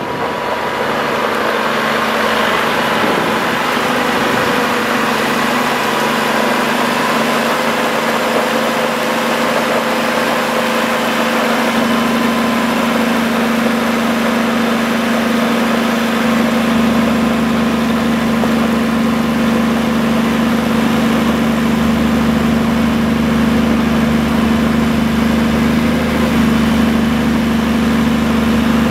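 Cummins L10 diesel engine of a 1990 Champion 740A motor grader idling steadily, its hum growing fuller and deeper about halfway through.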